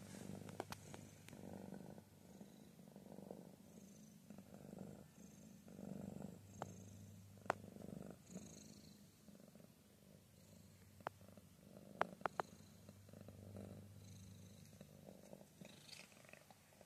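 Domestic cat purring softly and steadily, the purr swelling and fading in slow waves: a contented cat. A few sharp clicks cut through it, the loudest about halfway through.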